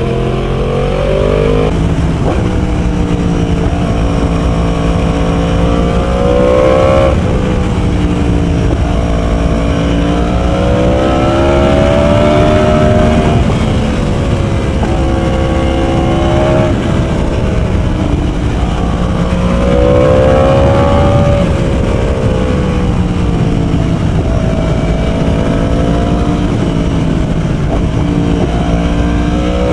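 Yamaha R1 sportbike engine with its catalytic converter removed, running loud under way. The revs climb and drop several times as the bike accelerates and shifts.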